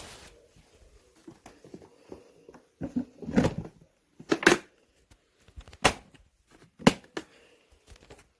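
A handful of short, sharp knocks and clatters, the loudest a few seconds in, with quiet room tone between them.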